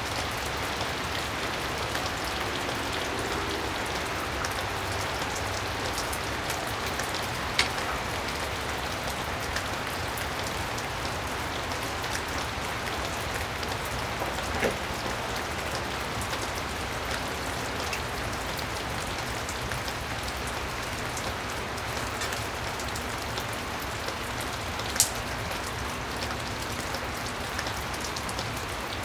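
Steady hiss of rain falling, with a few sharp clicks scattered through.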